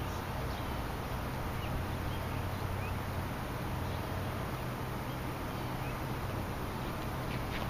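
Steady outdoor background of a low hum and even noise, with a few faint short bird chirps scattered through it.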